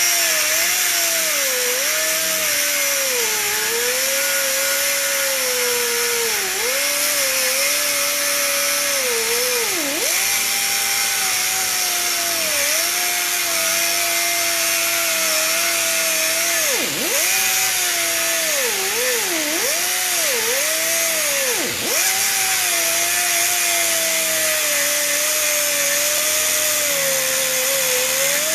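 A 5-inch air angle grinder with a 1 mm cut-off disc cutting through the steel shell of a refrigeration receiver tank. It makes a steady high hiss and a whine whose pitch wavers and dips sharply several times, most around the middle, as the disc bogs down in the cut.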